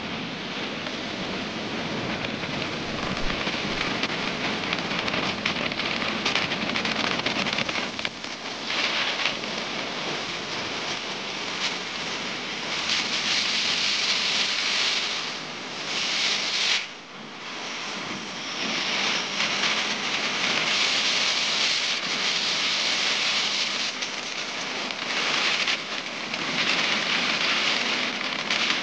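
Wind rushing and buffeting over the microphone of a camera carried on a moving vehicle, an uneven hiss that swells and falls, dipping briefly a little over halfway through.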